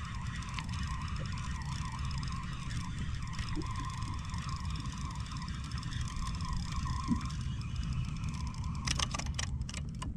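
Fishing reel cranked against a fish on a hard-bent rod: a wavering, siren-like whine, over a steady low rumble. A quick run of sharp clicks comes near the end.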